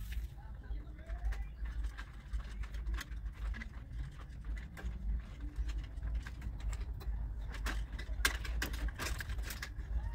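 Stripped electrical wires being handled and twisted together with wire nuts: scattered small clicks and scrapes, with a quick run of them about eight seconds in, over a low steady hum.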